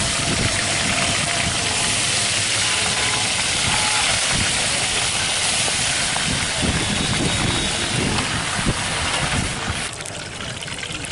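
Fish deep-frying in a large wok of hot oil, a loud steady sizzle that drops away near the end.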